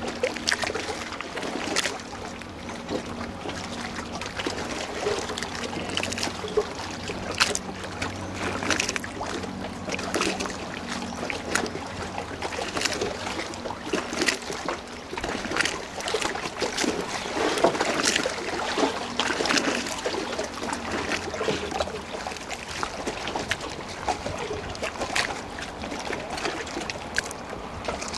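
Small sea waves lapping and splashing close to the microphone held at the water surface, an uneven stream of little slaps and sloshes. A faint low steady hum sits underneath for roughly the first ten seconds.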